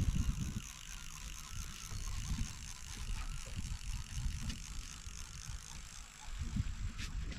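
Fishing reel clicking with a ratchet sound, over a steady low rumble of wind and water.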